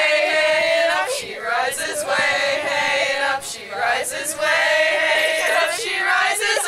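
A group of young voices singing together in held notes, phrase after phrase with short breaks between.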